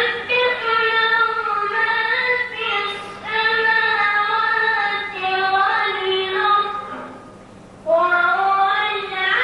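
A boy reciting the Quran in the melodic tajweed style, drawing out long, slowly ornamented notes. About seven seconds in he pauses for a breath, then starts the next phrase. A faint steady hum runs underneath.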